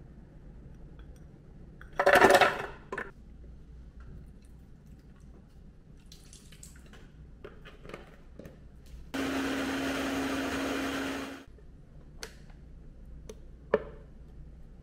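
Blender motor running in one steady burst of about two seconds, with a single hum under the whirr. A loud, brief clatter comes about two seconds in, with scattered small knocks and clicks around it and a sharp click near the end.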